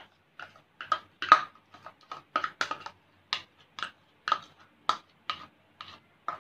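A string of short, light clicks and taps, about two a second and uneven, from a metal spoon and a small bowl as mango pulp is scraped out into a pan of milk and coconut powder.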